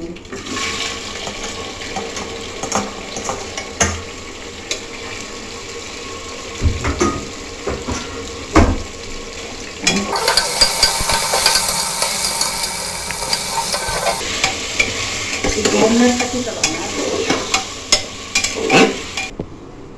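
Taro root pieces sizzling in hot oil in an aluminium pressure cooker, stirred with a metal spatula that scrapes and clinks against the pot many times. The frying gets a little louder from about ten seconds in.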